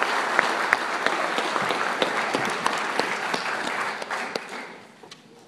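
Audience applauding, a dense patter of many hands that dies away over the last second or so.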